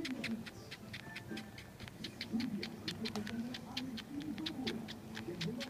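A kitten suckling on a shirt: a steady run of small wet sucking clicks from its mouth, about four a second, over a low wavering hum.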